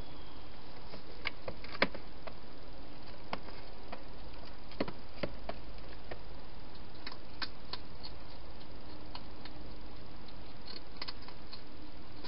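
Wild hedgehog feeding at the bowls inside a clear plastic feeding box: scattered, irregular clicks and taps, the loudest about two seconds in, over a steady hiss.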